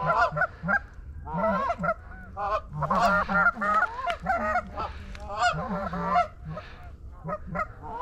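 Canada geese honking and clucking in quick, overlapping calls as a small flock sets up to land.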